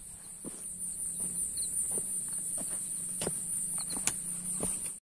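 Insects chirring in a steady high-pitched drone, with irregular footsteps crunching on the small stones of a mountain trail.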